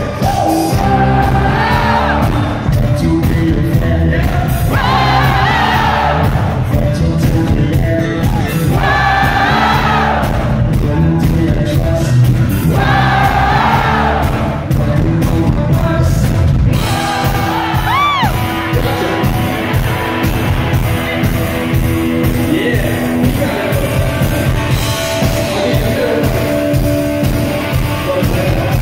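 Live rock band playing loud in a concert hall, picked up on a phone microphone, with a lead singer's voice in short repeated phrases over a steady beat and a long held note about two thirds of the way through. Scattered crowd shouts and whoops.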